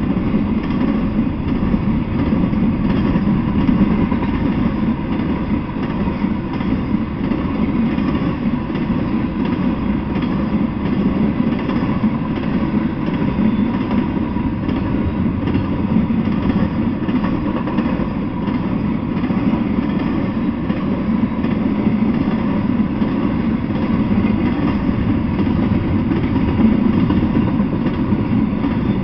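Intermodal freight train of container well cars and trailer flatcars rolling past at a steady speed: a continuous, even noise of steel wheels running on the rails, with no pauses.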